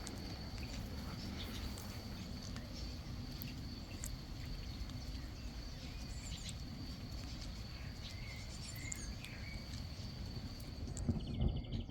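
Outdoor garden ambience in a thunderstorm: scattered short bird chirps over a steady high-pitched tone and a low rumble. Near the end, a louder low rumble of thunder sets in.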